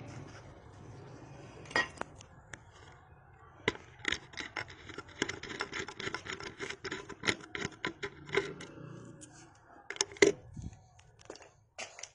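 Hands handling small metal motorcycle parts: a run of sharp clicks, taps and scrapes, several a second, starting about two seconds in, over a faint low hum that fades early.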